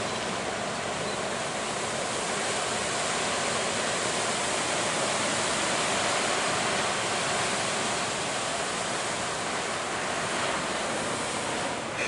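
Heavy surf: large waves breaking and rushing in a continuous roar of white water, swelling a little in the middle.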